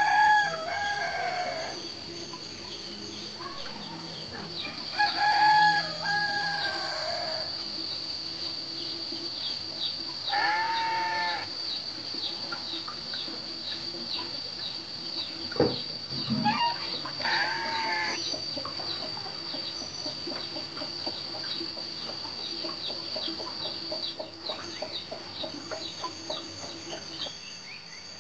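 Roosters crowing four times, one long crow every five seconds or so. A steady high-pitched buzz with rapid chirps runs underneath.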